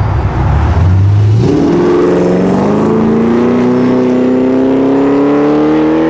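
2014 Chevrolet Camaro's engine rumbling low, then revving up sharply about a second and a half in and pulling hard, its pitch climbing steadily as the car accelerates away.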